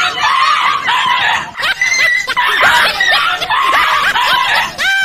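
A frightened dog yelping over and over in short, high cries that rise and fall, several a second.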